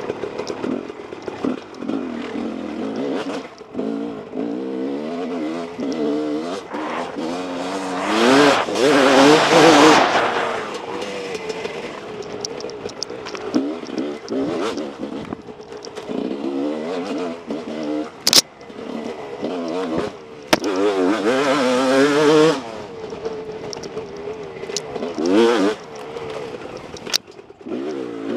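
Husqvarna WR 300 two-stroke dirt bike engine under way, revving up and down with the throttle, with hard surges about eight seconds in and again past twenty seconds. Two sharp clicks stand out along the way.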